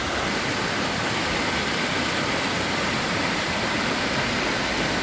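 Steady rush of a fast-flowing stream fed by a waterfall.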